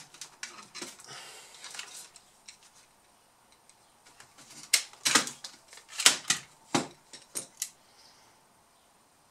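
Small clicks and taps of a screwdriver and plastic parts being handled in an opened laptop chassis, scattered and faint at first, then a run of sharp clicks about five to eight seconds in.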